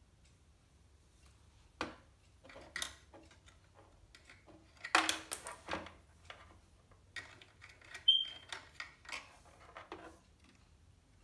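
Small plastic toy pieces clicking and clattering as they are handled and set into a plastic toy house, with a flurry of louder clacks about five seconds in. A brief high squeak-like tone sounds just after eight seconds.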